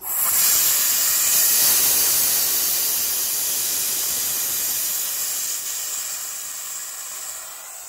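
Compressed gas hissing out through the opened high-side valve of an AC manifold gauge set, bleeding off the discharge pressure that the compressor built up and held. The hiss starts suddenly, is loudest in the first couple of seconds, then slowly fades as the pressure drops.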